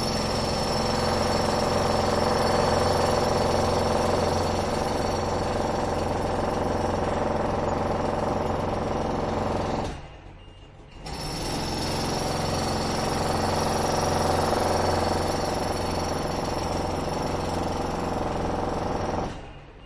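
Heavy construction machinery running steadily with a rapid, even pounding. It fades out briefly about ten seconds in, comes back, and fades again near the end.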